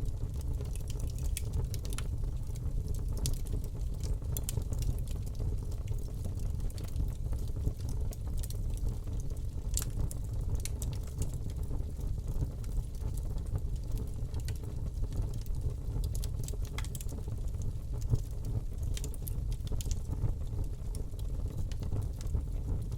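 Fire burning in a fireplace: a steady low rumble of the flames, with frequent small irregular crackles and pops.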